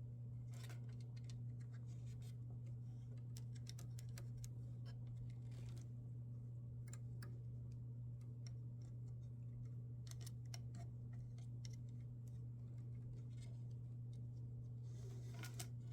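Faint, irregular clicks and scratches of hands working the belt and rollers of a laser engraver's frame, over a steady low hum.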